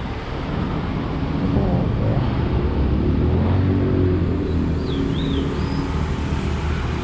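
Road traffic along a busy street: a motor vehicle's engine hum swells as it passes close by, loudest in the middle, over steady traffic noise.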